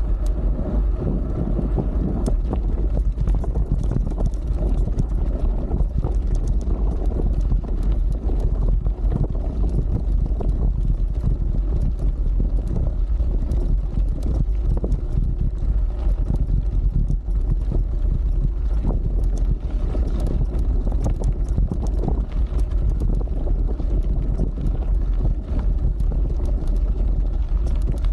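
Wind buffeting the microphone of a handlebar-mounted camera on a moving mountain bike, over the rumble of the tyres on a dirt and gravel track. Frequent short rattles and clicks from the bike jolting over the rough surface.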